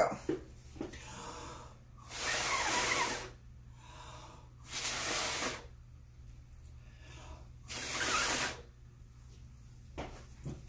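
A person blowing hard across wet acrylic paint in long, breathy puffs: three strong ones of about a second each, with a few weaker ones between.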